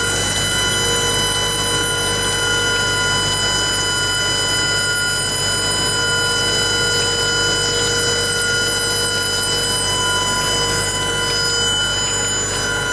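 HWJ300 wedge wire screen welding machine running steadily: a constant whine of several high tones over a mechanical hiss with fine, fast ticking.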